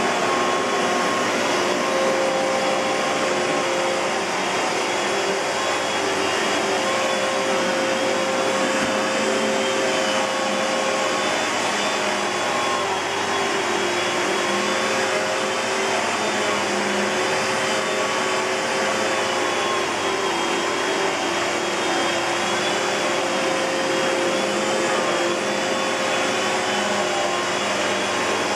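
Kenmore Progressive canister vacuum cleaner (model 116.21514012) running steadily on its SIP Cinderson blower motor: a constant rush of air with a steady whine on top.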